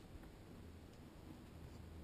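Faint, steady low hum of a quad bike's engine running while it rides along.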